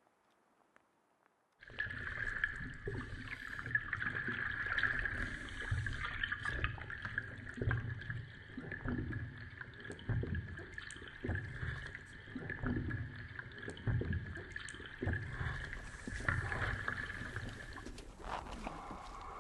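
Water gurgling and sloshing around a diver in an ice hole, with a steady high-pitched whine over it. It starts abruptly a little under two seconds in, and the whine drops away near the end.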